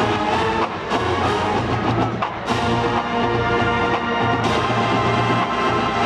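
College marching band playing a Motown medley: full brass over drums, with sharp percussion hits about two and a half and four and a half seconds in.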